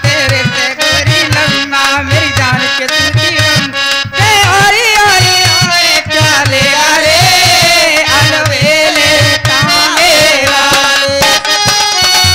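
Harmonium and dholak playing an instrumental folk music interlude: a held melody over a steady, repeating drum beat.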